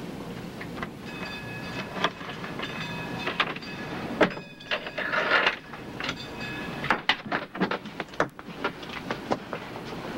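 A brass door chain slid along its track and unhooked with a sharp metallic clink, followed by a door opening and a run of clicks and knocks, over a steady background rumble.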